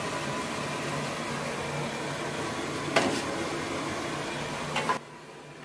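Crisp deep-fried okra slices rattling as they are tipped from a perforated steel skimmer into a steel pot, with a sharp clink about three seconds in and another near five seconds. A steady hiss of hot frying oil sits under it and drops away about five seconds in. The rattle is the sign the okra is fried crisp.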